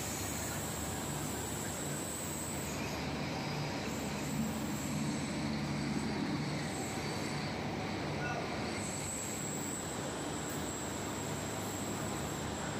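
Machinery of an industrial biscuit production line running: a steady mechanical hum and hiss with a thin high-pitched whine.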